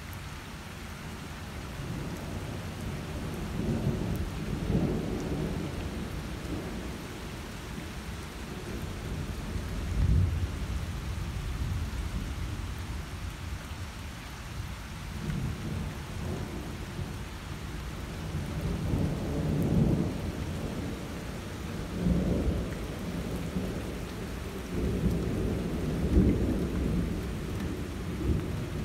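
Thunder rumbling in repeated rolls over steady rain. The louder rolls come about 4, 10, 20, 22 and 26 seconds in.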